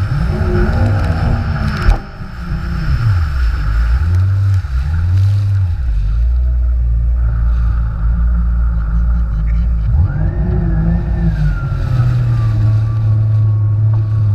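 Jet ski engine running at speed, its pitch rising and falling repeatedly as the throttle and load change, over the rush of water spray. A single sharp knock comes about two seconds in.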